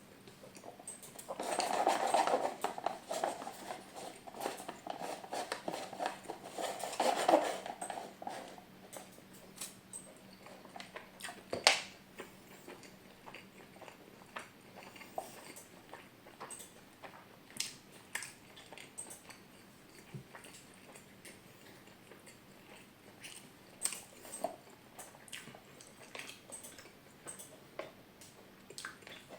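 Close-miked eating: two stretches of dense biting and chewing, one starting about a second and a half in and one around seven seconds, then quieter mouth clicks and chewing, with one sharp click near twelve seconds.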